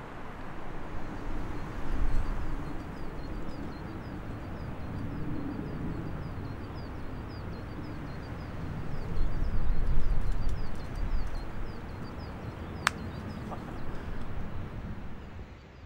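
Wind gusting on the microphone with a low rumble, strongest about two seconds in and again around nine to ten seconds. Over it a bird chirps in short high notes a few times a second, and there is one sharp click near the end.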